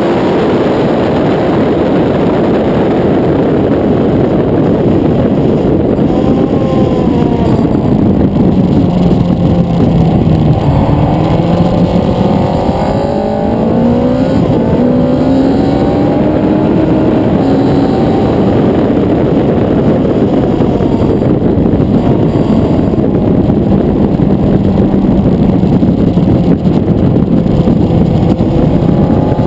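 Suzuki GSX-R 1000 inline-four sportbike at speed, heard onboard with loud, steady wind rush on the microphone. Midway through, the engine note is heard rising and falling with the revs.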